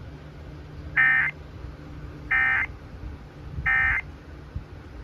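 Three short, buzzing Emergency Alert System data bursts about a second apart, the end-of-message (EOM) code that closes an EAS test, over a faint steady hum.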